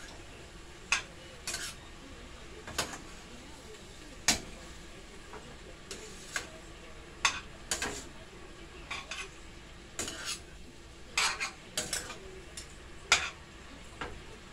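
Spoon stirring cabbage in a stainless steel pot, scraping and clacking against the pot's sides in irregular sharp knocks, roughly one a second, over a low steady sizzle of the frying cabbage.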